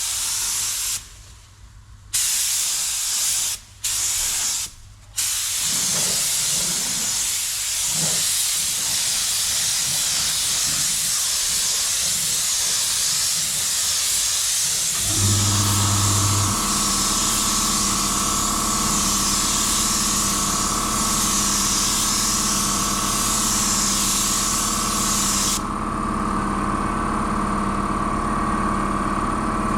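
Spray gun hissing as paint is sprayed, cutting out briefly three times in the first five seconds as the trigger is released. About halfway through, a motor starts and runs steadily with a hum under the hiss.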